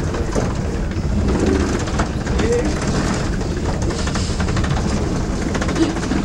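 Steady low rumble inside an airport jet bridge as passengers walk to board an airliner, with light footsteps and faint distant voices.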